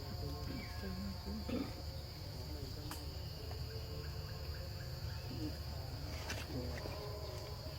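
Steady, high-pitched drone of insects calling, with a low rumble underneath and a few faint clicks.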